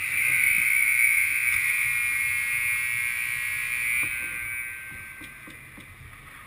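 Ice rink's game buzzer sounding one steady, high-pitched blast of about four and a half seconds that starts suddenly and then fades out.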